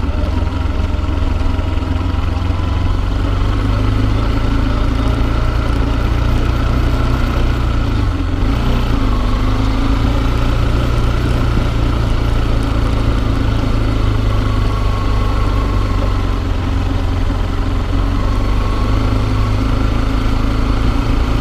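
Small motorbike engine running steadily under way, with a brief dip about eight seconds in.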